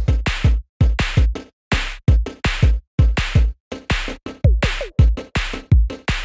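Background electronic music with a punchy drum-machine beat, a kick or snare about twice a second with short silent gaps between hits.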